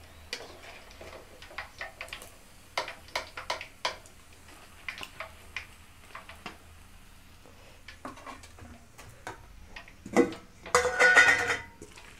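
Metal spoon clinking and scraping against a metal kadai and a plate as fried chicken pieces are lifted out of the oil: a string of light clicks and taps. Near the end a steel plate clatters and rings.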